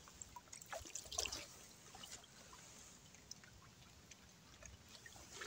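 Faint water dripping and trickling, with scattered small ticks and splashes.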